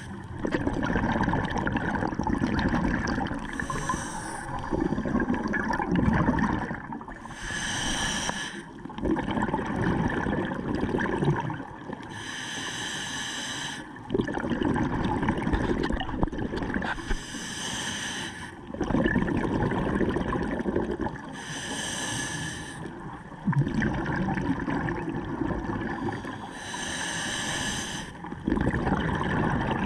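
Scuba diver breathing through a regulator underwater: a short hissing inhale about every four to five seconds, each followed by a longer, lower rush of exhaled bubbles. Seven breaths in all.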